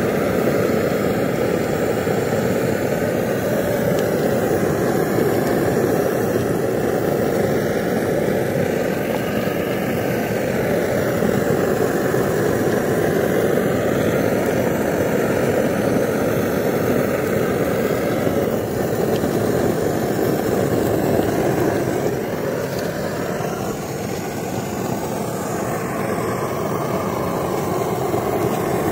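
Portable pressure stove's burner running with a steady rushing noise under a pan of oil.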